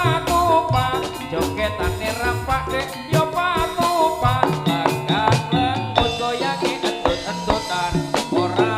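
Live jaranan ensemble music: drums beating a busy rhythm under a wavering, ornamented melody line.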